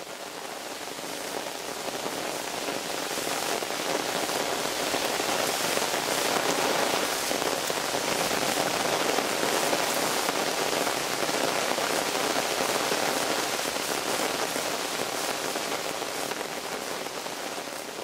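Rainwater running in a shallow stream over gravel and pebbles, a steady even rush of water that swells up over the first few seconds and eases off near the end.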